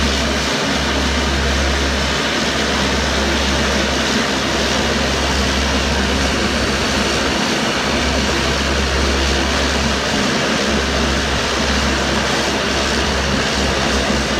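Twin-engine turboprop airliner taxiing, its engines and propellers running with a steady, loud drone.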